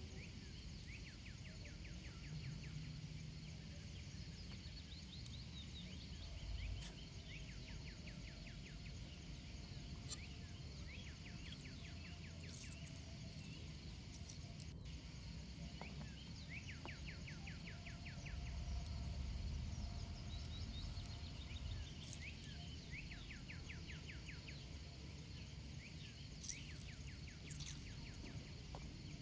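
Quiet outdoor forest ambience: a steady high hiss with runs of quick chirping trills from wild animals recurring every few seconds, over a low rumble, with an occasional faint click.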